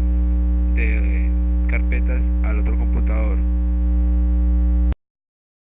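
Loud, steady electrical mains hum with faint, indistinct voices over it. It cuts off abruptly to dead silence about five seconds in.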